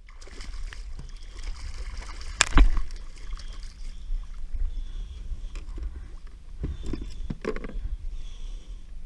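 Water sloshing and splashing against the side of a kayak as a smoothhound tangled in rope is pulled alongside, with a sharp knock about two and a half seconds in and a few more knocks near the end.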